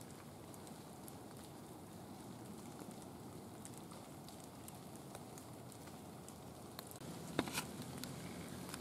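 Faint, scattered crackling and ticking, like dry autumn leaf litter being disturbed. About seven seconds in it gets louder, with one sharp knock and fuller rustling after it.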